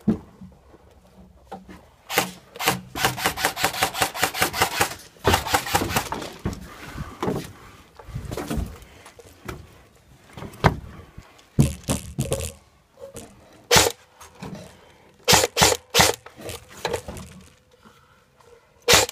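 Airsoft gunfire: a fast, even burst of about eight or nine shots a second lasting about two seconds, followed by scattered single sharp cracks and knocks.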